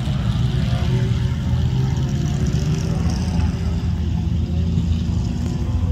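Steady low drone of off-road vehicle engines running, with faint voices in the background.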